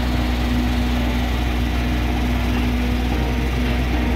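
Alishan Forest Railway diesel locomotive's engine idling steadily with a low, even drone.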